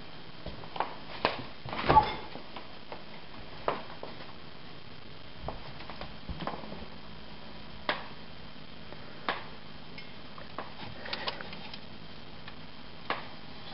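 Scattered light clicks and knocks of hands handling small wax-filled metal bottle caps and moving about, the loudest about two seconds in, over a steady low hum.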